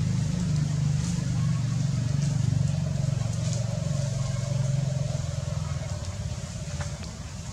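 A motor vehicle engine running steadily with a low rumble, easing off near the end.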